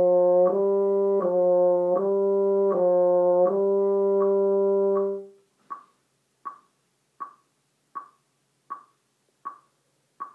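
French horn playing a short phrase of repeated tongued notes on one pitch, the last one held longer, stopping about five seconds in. After that only a metronome is heard, ticking steadily about once every three quarters of a second.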